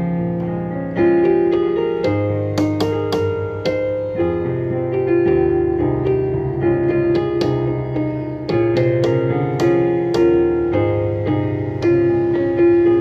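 Digital piano played in a piano voice: a slow hymn tune over sustained chords and a bass line, with new notes struck about once a second.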